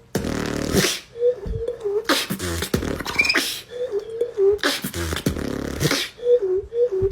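Beatboxing by one person's mouth: a wavering pitched tune alternates with hissing snare- and hi-hat-like bursts and short low kick-drum thumps, in a loose repeating rhythm.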